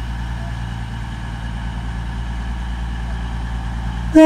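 Class 222 Meridian diesel multiple unit's engines running with a steady low drone. Near the end a loud train horn blast starts suddenly.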